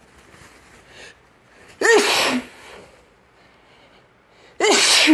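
A person sneezing twice, about three seconds apart, during an allergy sneezing fit. Each sneeze is a short voiced intake that breaks into a loud burst.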